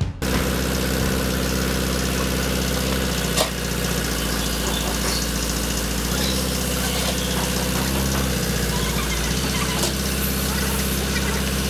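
Toyota Land Cruiser BJ40's diesel engine idling steadily, with one short click about three seconds in.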